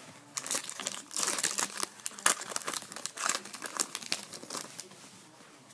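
Foil trading-card pack wrapper crinkling and tearing as it is opened by hand: a dense run of sharp crackles, thickest in the first half and thinning out toward the end.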